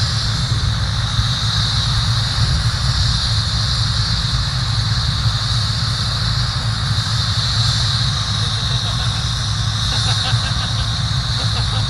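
Helicopter running steadily, its rotor giving a fast, even low beat under a constant high whine.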